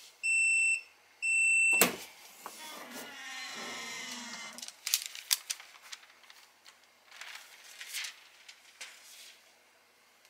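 Heat press timer beeping twice at the end of a 10-second press, then a loud clunk as the press opens about two seconds in, followed by a few seconds of mechanical noise and then scattered clicks and rustling as the pressed piece and its parchment cover are handled.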